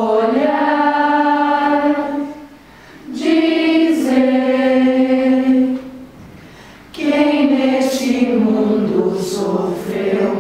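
Girls' and young women's choir singing unaccompanied: three long held phrases with short breaks between them, the last one stepping down in pitch.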